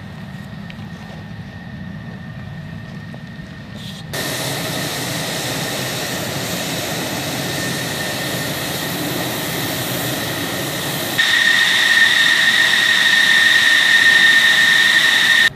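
F-16 fighter jet engine running on the ground. A low rumble comes first, then a steady rushing noise starts abruptly about four seconds in. About eleven seconds in it jumps louder, with a strong high-pitched whine.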